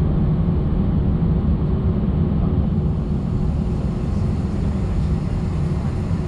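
Steady low rumble of an Airbus A319's jet engines and airframe heard from inside the passenger cabin, with a steady tone running through it.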